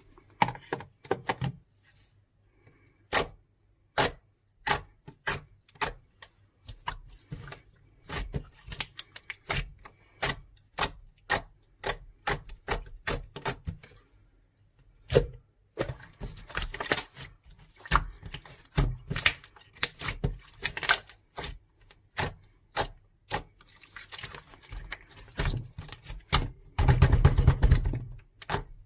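Irregular sharp clicks and taps, some single and some in quick runs, building to a dense rapid clatter near the end.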